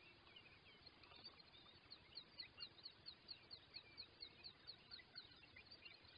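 Faint birdsong: a repeated run of short, high, downward-sliding chirps, about three or four a second, with scattered other chirps over a soft background hiss.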